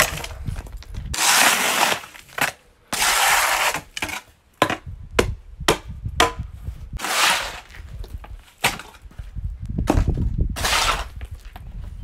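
Square-point steel shovel scraping soil across a concrete slab and tossing it into a hole: about four long scrapes with short knocks and clicks of blade, dirt and stones in between.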